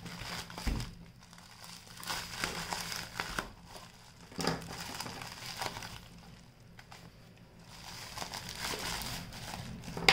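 Plastic courier mailer bag crinkling and crackling as hands handle it and pull it open, in irregular bursts. There are louder crackles about a second and four and a half seconds in, and a quieter stretch near seven seconds.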